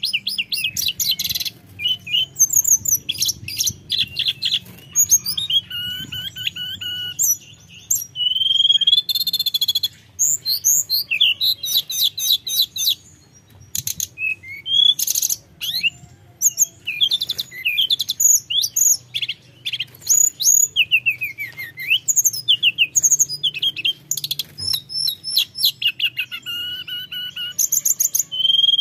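Male hill blue flycatcher (tledekan gunung) singing in full, continuous song: rapid runs of high, clear whistled notes, sliding notes and fast trills, phrase after phrase with only short pauses between them.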